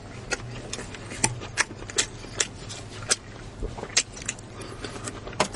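Close-miked eating sounds: irregular sharp clicks and smacks of chewing, two or three a second.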